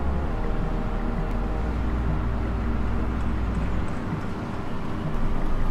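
Steady low rumble of city traffic ambience with a constant hum, the low rumble dropping away about four seconds in.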